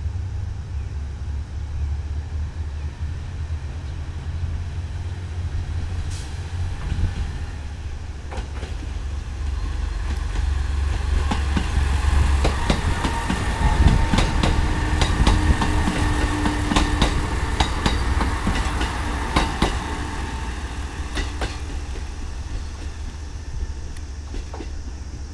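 JR West KiHa 189 series diesel multiple unit passing close by, its diesel engines droning low. Wheels clack over the rail joints and a thin whine rises over the drone, loudest around the middle, then it eases off near the end.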